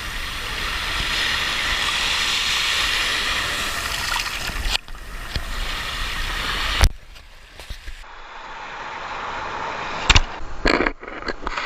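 Sea waves washing on a beach, a steady hiss of surf that changes abruptly at a couple of edit cuts. A few sharp knocks come near the end.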